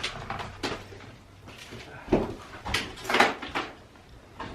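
A series of short scrapes and knocks, about six in all, loudest around two to three seconds in.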